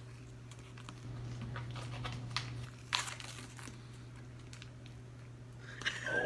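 Plastic MRE food pouch being torn open at its notch and handled, crinkling with a few sharp crackles, the loudest about three seconds in.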